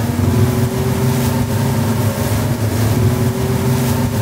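Outboard-powered boat running underway: a steady engine note with a hiss of wind and water over it.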